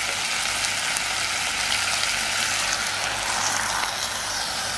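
Vegetables (drumstick, green chillies and tomato) sizzling steadily in hot oil.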